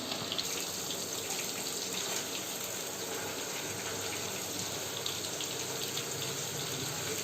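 Marinated chicken pakora pieces deep-frying in oil in a kadai on a low flame: a steady sizzle with fine crackles.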